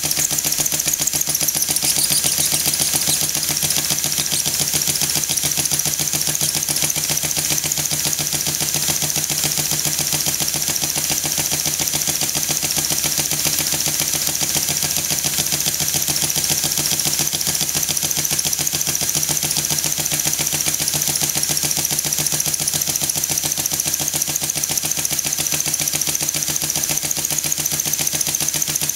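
Stuart S50 single-cylinder model mill steam engine running on compressed air at about 5 psi: a fast, even chuffing of air exhausting from the cylinder over a constant hiss, steady throughout.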